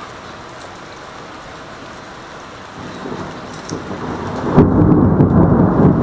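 Thunder rolling in: a deep rumble that builds from about three seconds in and breaks loud a little past four and a half seconds, then keeps rumbling.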